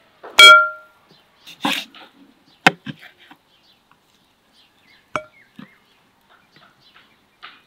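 Knife work on a wooden cutting board while raw meat is trimmed: a few sharp knife taps and a scrape against the board. Near the start there is one loud, ringing metallic clink, the loudest sound.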